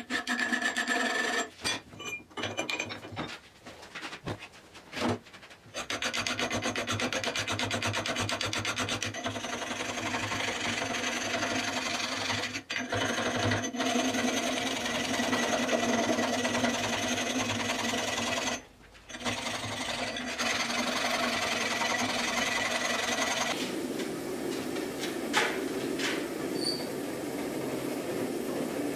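Hand file rasping over the steel of a forged axe head held in a vise, in quick back-and-forth strokes with a few short pauses. Near the end it gives way to the steady rush of a gas forge burning, with a couple of sharp clicks.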